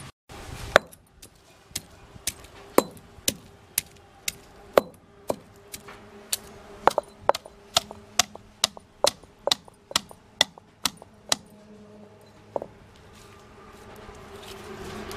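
Granite pestle knocking down on garlic, ginger and cinnamon in a stone grinding mortar (aattukal), stone striking stone about twice a second to crush them. The knocks stop about 11 seconds in, with one more a little later.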